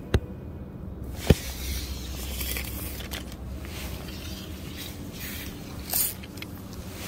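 Fly rod being cast, with two sharp clicks in the first second and a half, then several short whooshes of fly line through the air, over a low steady rumble.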